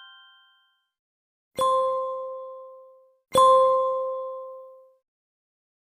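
Bell-like ding sound effect struck twice, about two seconds apart, each ding ringing out and fading over about a second and a half, the second slightly louder. The fading tail of a higher chime dies away at the start.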